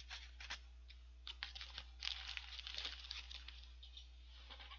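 Paper fast-food packaging rustling and crinkling as it is stuffed into a paper bag: a quick run of small crackles and clicks, densest in the middle.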